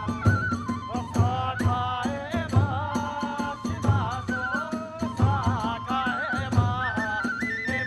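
Kagura accompaniment music: a high bamboo flute melody moving in ornamented steps over a steady, quick beat of drum strokes and hand cymbals.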